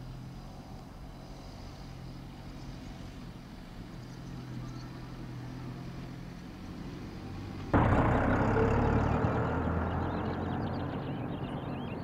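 Car driving on a dirt track: a steady low engine hum, then about eight seconds in a sudden, much louder rush of engine and tyre noise that slowly fades.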